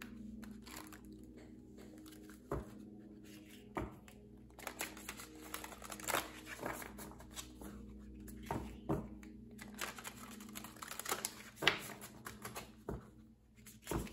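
Oracle cards being shuffled and handled: an irregular run of soft riffles, slides and taps over a faint steady hum.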